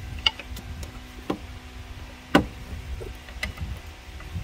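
Sharp metal knocks and clicks about once a second, the loudest about two and a half seconds in, as the unbolted cylinder head of a 2.4L four-cylinder is rocked loose from the engine block.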